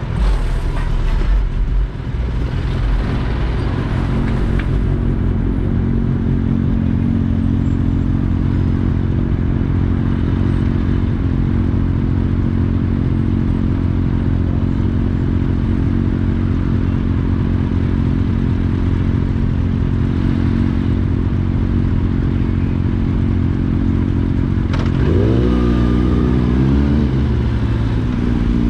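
Kawasaki Ninja ZX-10R's inline-four engine heard from the rider's seat, running at a steady, even pitch. About 25 seconds in, engine revs rise and fall back once.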